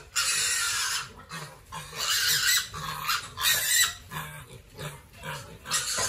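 Piglets eating at a round concrete trough: irregular bursts of chewing and snuffling noise, with short low grunts scattered throughout.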